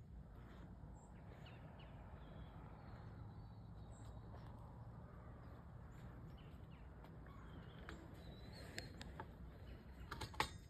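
Quiet open-field ambience: a low rumble with faint, scattered bird chirps, then a short cluster of sharp clicks near the end.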